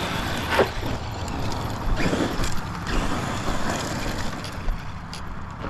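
Redcat Piranha 1/10-scale electric RC truck driving, its motor and tires running over the ground in surges of throttle, with a few sharp clicks.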